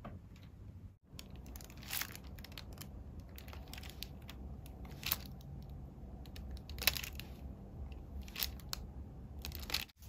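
Plastic being handled by hand, crinkling, with about five sharp crackles a second or two apart over a faint steady low hum.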